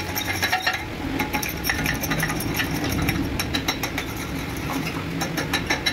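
Irregular light metallic clinks and clicks over a steady engine running.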